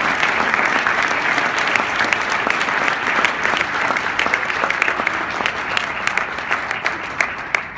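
Audience applauding, many hands clapping in a dense patter that thins out toward the end.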